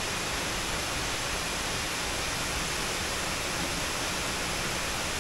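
Waterfall pouring into a rock pool: a steady, even whoosh of falling water.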